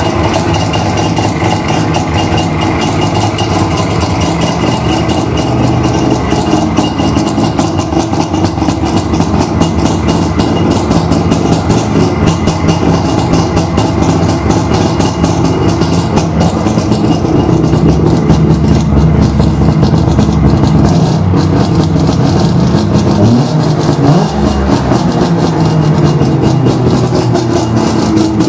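Saab 93 F's three-cylinder two-stroke engine running at a steady idle, with a short rev late on, the pitch rising and then settling back.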